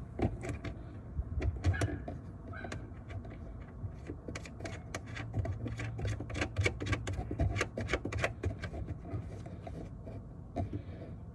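Hand work on a taillight fastening in a car's trunk: a run of light, irregular clicks and rattles, most frequent in the middle, as a screw is fitted by hand.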